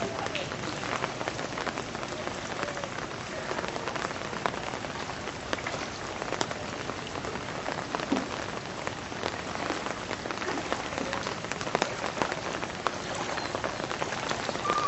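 Steady rainfall: a continuous hiss of falling water with many separate sharp drop hits on surfaces.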